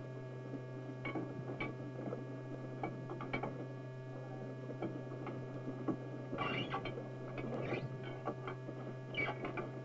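Steady hum from an old film's soundtrack, with scattered faint clicks and crackle that bunch up twice in the second half.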